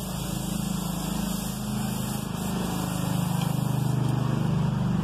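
A vehicle engine running steadily, a low pulsing hum that grows louder after about three seconds.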